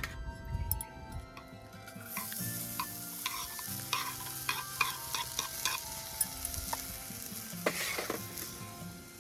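Food sizzling in a pan, starting about two seconds in, while a utensil clicks and scrapes against the pan as it is stirred. Quiet background music with held notes plays underneath.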